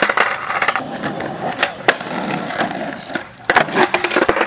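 Skateboard wheels rolling on rough concrete, broken by several sharp clacks of the board hitting the ground, with a cluster of them about three and a half seconds in.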